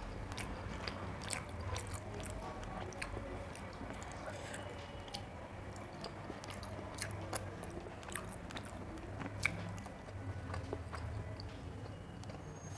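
Close-up eating sounds: chewing and mouth clicks from someone eating rice, daal and curry, with small sharp smacks scattered irregularly throughout.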